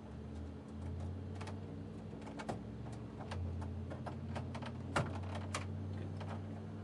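Irregular light clicks and taps of hands handling cable connectors and electronic equipment, the loudest about five seconds in, over a steady low electrical hum.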